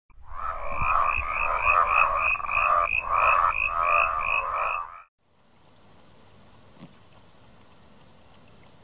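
An animal call: a rapid, even series of croaking pulses, about three a second, lasting about five seconds and then cutting off abruptly. A faint steady hiss follows.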